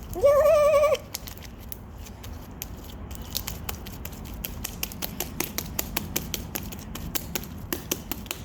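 Homemade slime being kneaded and stretched by hand, giving off many sharp sticky clicks and pops that come faster after the first few seconds. A short, loud, wavering voice-like tone sounds right at the start.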